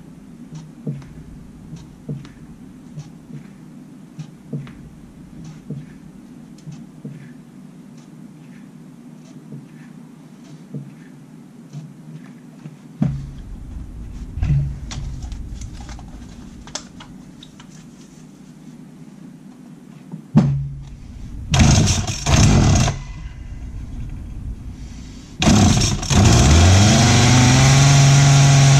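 Freshly rebuilt McCulloch Mac 3516 45 cc two-stroke chainsaw engine being started. After a run of small clicks from handling the saw, a few starter pulls bring brief loud bursts, and about 25 seconds in it catches and keeps running, its speed climbing.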